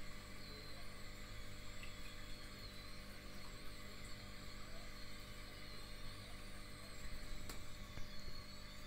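Faint, steady low hum with a light hiss from running aquarium pumps, with a single faint click about seven and a half seconds in.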